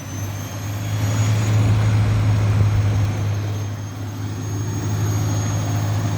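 Fagor washing machine drum spinning at full 1200 rpm with the door open: a steady motor hum and rushing air, with a thin high whine over it.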